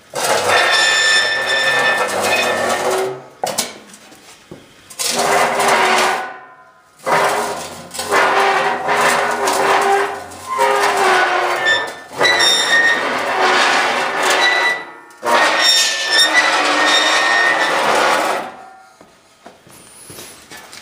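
Homemade imitation of the viral 'strange sounds from the sky': about six loud, drawn-out wavering tones of two to three seconds each, each holding a few pitches over a rough, rasping body, with short breaks between.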